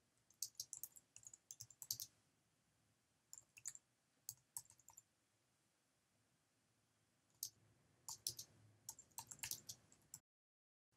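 Computer keyboard typing: quick runs of key clicks in three bursts with short pauses between them, stopping suddenly shortly before the end.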